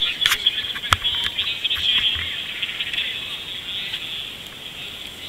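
Sound aboard a paddled canoe: a busy high hiss of water splashing, with a sharp knock about a second in.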